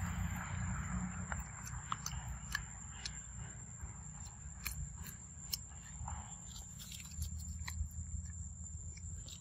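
A macaque biting and chewing a ripe yellow fruit, with short wet clicks and smacks of its mouth scattered throughout.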